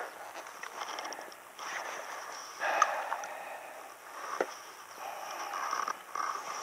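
Lake water sloshing and splashing around a float tube in short, irregular bursts, with a couple of sharp clicks from handling the landed bass.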